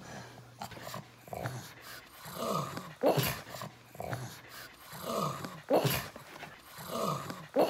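Pug grunting in three short bouts about two seconds apart, each a sound falling in pitch ending in a sharp snort.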